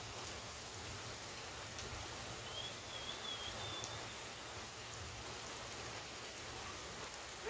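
Steady rain falling, an even hiss of drops, with a faint high wavering whistle about halfway through.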